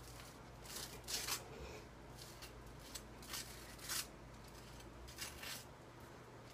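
Butter knife spreading butter on toast: a handful of short, faint scraping strokes.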